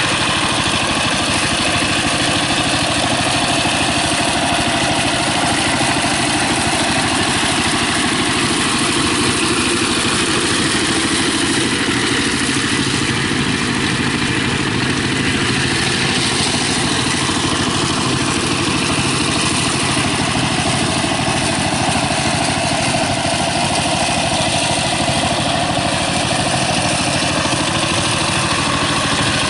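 Single-cylinder diesel engine of a two-wheel walking tractor running steadily under load as it drives a rotary tiller through mud.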